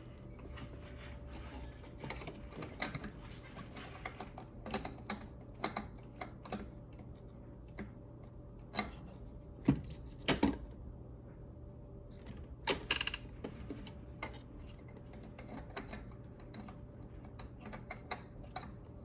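Irregular clicks and knocks of a metal aftermarket turbo inlet pipe being pushed and twisted against the turbocharger's inlet connection, with a few louder knocks about halfway through. The inlet won't seat: a tab on it is too thick to go into the slot flush.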